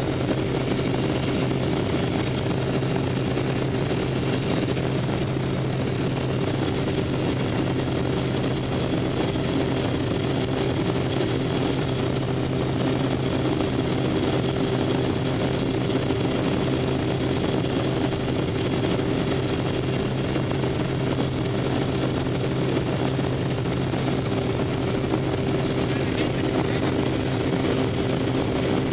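Small jump plane's piston engine and propeller running steadily, heard from inside the cabin as a constant drone with a low hum and a steady higher tone.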